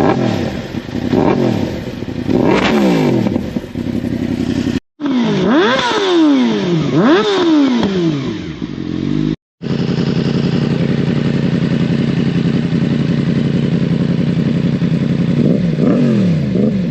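Sport motorcycle engines on aftermarket exhausts, blipped in quick revs that rise and drop straight back, several in a row, then a stretch of steady idle with a few more revs near the end. The sound cuts out dead twice as the clips change.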